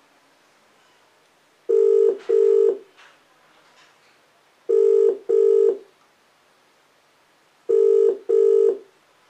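Ringback tone of an outgoing phone call, played through small desktop speakers. It rings double, ring-ring, once every three seconds, three times, while the call waits to be answered.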